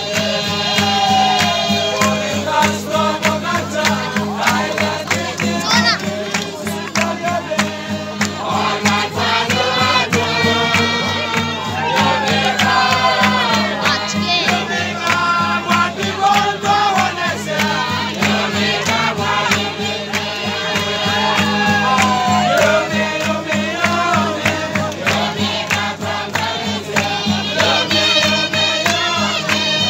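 A group singing in chorus to several strummed acoustic guitars, with a steady, fast strum under the voices and a crowd of voices around them.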